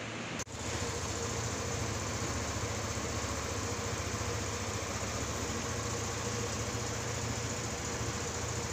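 Yamaha Aerox 155 scooter's single-cylinder engine idling steadily, with an even low pulse, after a brief dropout about half a second in.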